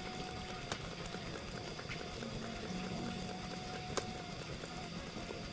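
Fish grilling over a fire: a faint steady crackle with two sharp pops, under a low steady hum that comes and goes.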